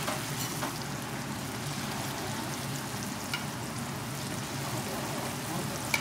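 Hotteok (sweet-filled Korean dough pancakes) sizzling steadily in shallow oil on a flat griddle as they are pressed flat with a metal press, with a few light clicks.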